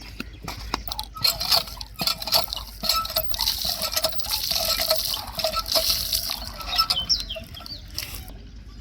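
Common myna singing: a rapid, jumbled run of clicks, chatters and short whistled notes, which stops about half a second before the end.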